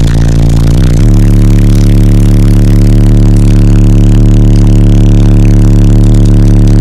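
Extremely loud bass playback from a wall of ten PSI Platform 3 15-inch subwoofers in a walled-off fourth-order bandpass box, heard from inside the vehicle's cabin. The deep bass note shifts about a second in, then holds steady.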